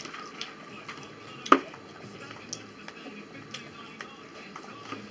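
Metal cutlery clicking against dishes while eating: a fork on a plate and a spoon in a cup. The clicks are scattered, with the sharpest about a second and a half in.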